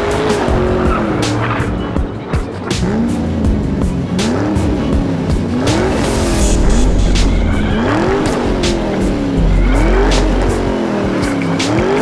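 Racing-car engine sound revving up and falling back about once a second, with tyre squeals, over background music with heavy bass.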